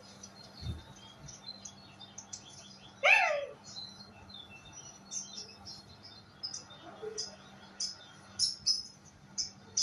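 Bird chirps: many short, high notes repeating, with one louder, drawn-out call about three seconds in.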